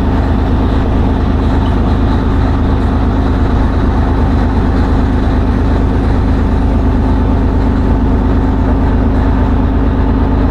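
River ferry's diesel engine running steadily, a loud, even low drone with a fast regular throb underneath.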